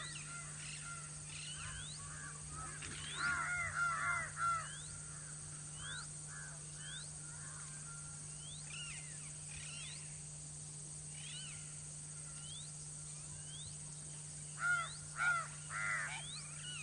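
Crows cawing: a run of harsh caws a few seconds in, a few scattered caws in the middle, and another quick run of three or four near the end.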